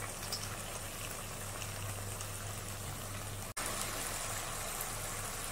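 Shredded cabbage, onion and capsicum sizzling steadily in oil in a kadhai, over a low steady hum. The sizzle drops out for an instant about three and a half seconds in, then resumes.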